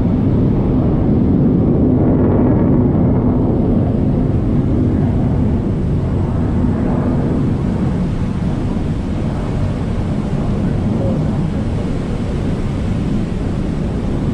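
Steady rush of wind on the microphone and churning wake water aboard an Arleigh Burke-class destroyer under way at speed, heaviest in the low end, easing slightly about halfway through.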